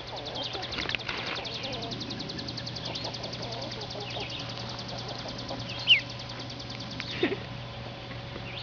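Ducklings peeping: two short, loud falling peeps about six seconds in and a fainter one just after seven, over a fast, even ticking trill in the background that fades out about halfway, and a low steady hum.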